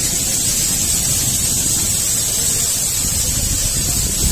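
Wind buffeting the microphone: a steady, loud rushing noise with a low, irregular rumble.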